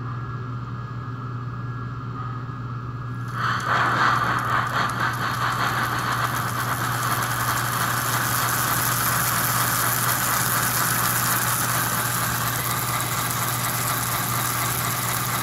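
American Flyer S-gauge toy steam locomotive, fitted with a digital chuff sound system, starting up on a test stand about three and a half seconds in: its motor spins the drivers while its speaker plays a steady, rapid, noisy steam chuff. A low steady hum comes before it starts.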